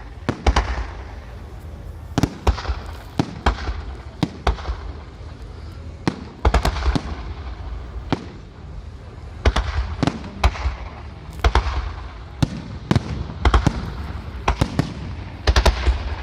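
Fireworks salute bursting: a rapid, irregular series of sharp bangs, some in quick clusters, with a low rumble and echo between them.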